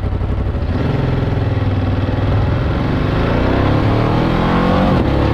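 Motorcycle engine running steadily, then pulling away about a second in and accelerating, its pitch rising steadily.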